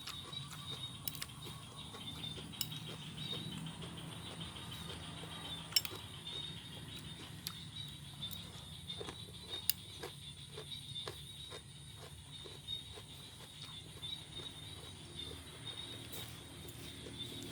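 Close chewing and crunching of a raw vegetable salad, a string of small crisp clicks that grows denser about halfway through, over a steady high-pitched hum.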